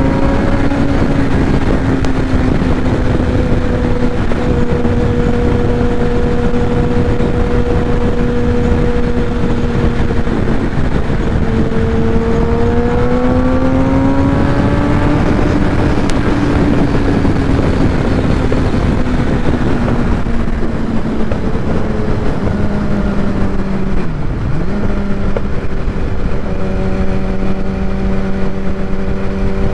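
Kawasaki ZX-10R inline-four with a Graves full titanium race exhaust, running at freeway cruising speed under heavy wind rush. Its pitch climbs as the bike speeds up near the middle, then settles back, and it dips briefly for a moment about three-quarters through.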